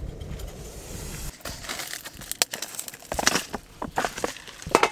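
A crinkly plastic instant-ramen packet being handled, crackling irregularly, with a few sharper crackles.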